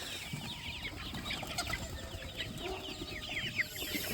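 A flock of chickens calling together: many short, high, falling peeps overlapping without a break.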